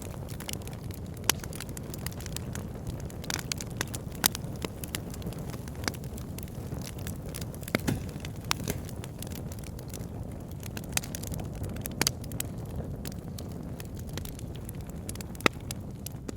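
Wood fire burning in a fireplace: a steady low rumble of flames with sharp irregular crackles and pops, a few louder snaps among them.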